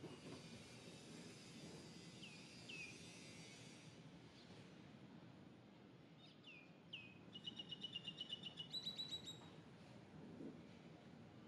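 Faint forest ambience with a bird calling. A few short downward-sweeping chirps are followed, about seven seconds in, by a quick trill of repeated notes lasting about two seconds. A faint steady insect hiss is heard in the first few seconds.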